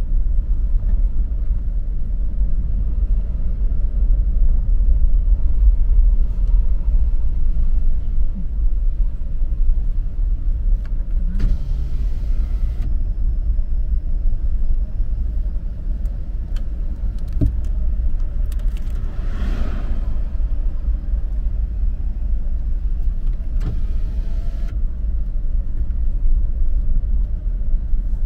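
Steady low rumble of a vehicle driving along a road, engine and road noise together. Brief hissing swells come twice, partway through and again near the end.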